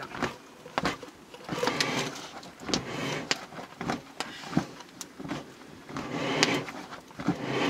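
Scraping and slicing of a large forest mushroom by hand: an uneven series of scratchy rasps and sharp clicks.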